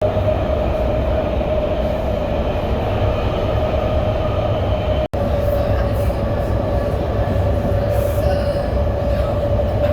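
BART train running at speed, with a loud, steady rumble and a steady high whine over it. The sound cuts out for an instant about halfway through.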